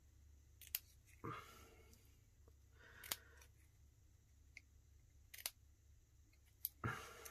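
Scissors snipping through cardstock: about four short, sharp cuts spaced a second or two apart, with soft paper handling between them.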